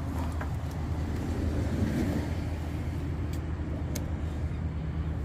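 Steady low rumble of motor traffic, with a few short sharp clicks over it.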